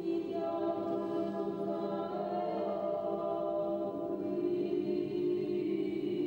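Choir singing an Orthodox liturgical chant in long, held chords.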